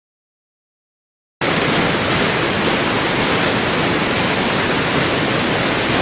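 Steady, loud rush of a waterfall plunging through a narrow rock gorge, cutting in abruptly about a second and a half in after silence.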